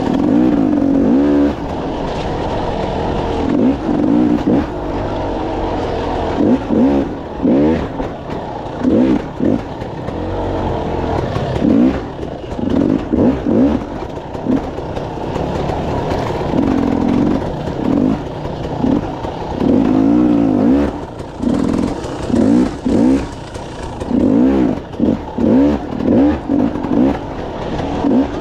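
KTM 300 two-stroke dirt bike engine revving up and down in repeated short bursts as the throttle is opened and closed again and again on slow, technical single track.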